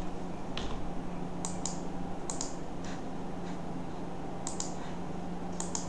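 Scattered clicks of a computer mouse and keyboard, about ten, several in quick pairs, over a steady low hum.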